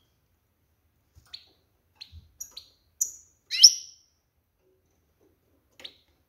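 Female European goldfinch giving a string of short, high chirping call notes spaced irregularly, one longer and louder call a little past halfway; this calling is that of a hen in breeding condition, calling to stir males to sing.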